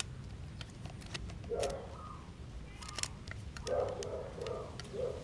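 A bird or animal calling in the background: short low calls, one about a third of the way in, then a run of four near the end. Light clicks from the camera's dial being turned are heard between them.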